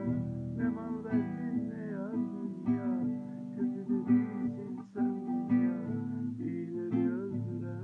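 Nylon-string classical guitar being strummed, playing chords in a continuous rhythm.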